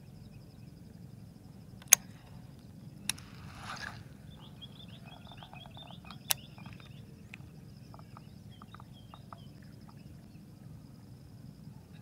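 Sharp clicks and a short swish from a baitcasting rod and reel as a soft frog lure is cast, then light ticking as the lure is worked. A steady high insect buzz runs underneath.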